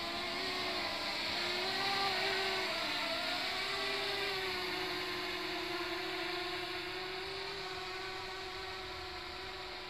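Electric motors and propellers of a scratch-built RC flying-saucer multirotor whining in flight. The pitch wavers with the throttle for the first few seconds, then holds steady and slowly grows fainter.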